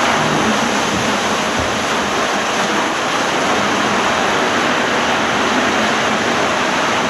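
Steady loud rush of water churning around a rider at the end of a turbo water slide, close on the camera's microphone.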